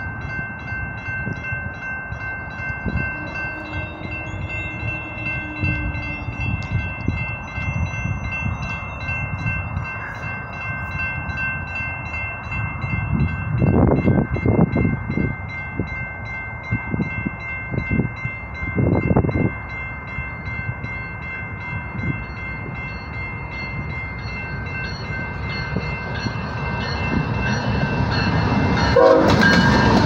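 Railroad crossing bell ringing steadily as an approaching BNSF freight led by a GE ES44DC locomotive sounds its horn. The train's rumble grows over the last few seconds as the locomotives reach the crossing.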